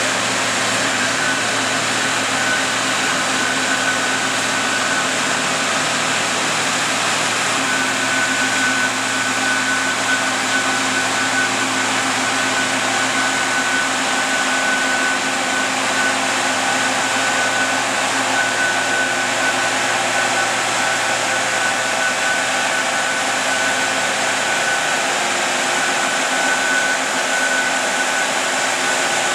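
Big four-wheel-drive diesel farm tractor's engine running steadily at a low, even throttle, with a steady high whine over the engine noise.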